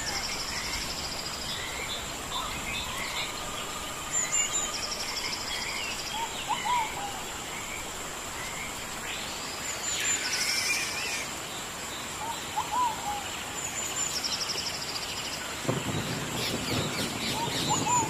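Wild birds chirping and calling in several voices, one repeating a short high trill every few seconds, over a steady thin high whine and a faint hiss. About sixteen seconds in, a low rumble comes in underneath.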